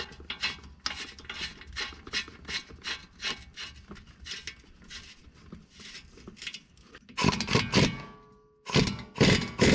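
A hand ratchet worked in quick strokes, about four clicks a second, tightening the bolt on a freshly fitted CV axle. Near the end come two louder bursts of an impact wrench.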